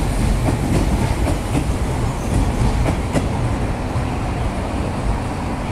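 Chiba New Town Railway 9200 series electric train pulling out of the station, a steady low rumble with irregular clacks of its wheels over rail joints. It grows a little quieter near the end as the last car draws away.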